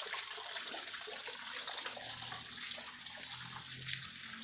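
Steady, soft rush of water running from a hillside spring.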